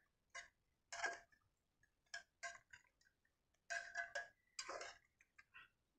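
Metal spoon stirring in an aluminium cooking pot: irregular short scrapes and clinks against the pot's side, some with a faint metallic ring, the loudest about a second in and several close together around four seconds in.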